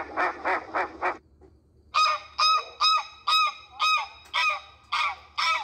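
Domestic geese honking: a run of quick calls in the first second, a short pause, then a series of loud honks about two a second.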